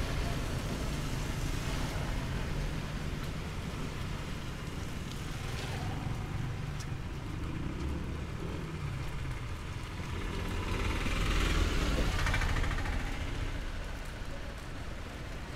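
Street traffic on a rain-wet road over a steady low rumble. One vehicle swells up and passes, loudest about eleven to twelve seconds in, then fades.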